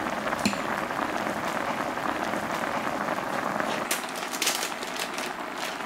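Budae-jjigae simmering in a wide pan on a portable gas burner, giving a steady bubbling hiss. A brief run of sharp clicks and crinkles comes about four seconds in.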